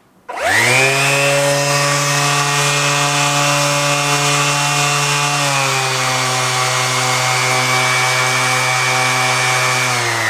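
Makita DBO180 18V cordless random orbit sander switched on, its motor winding up quickly and then running freely with a steady whine. Its pitch shifts slightly about halfway through and again near the end as the speed setting is stepped through.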